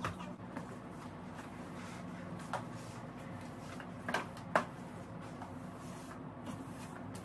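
A few short, light knocks and clacks of household objects being handled, the loudest a pair about four seconds in, over a steady low hum.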